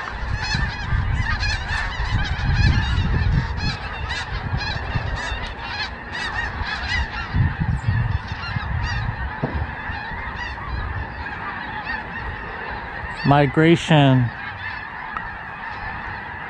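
A large migrating flock of geese calling overhead: a dense, continuous chorus of many overlapping honks. A low rumble runs under the first half, and a louder burst comes about thirteen seconds in.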